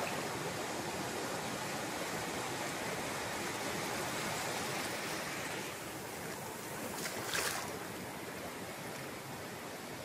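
Sea surf: small waves breaking and their foamy wash running up a sandy beach, a steady hiss that eases a little after about six seconds. About seven seconds in there is a brief, louder hiss.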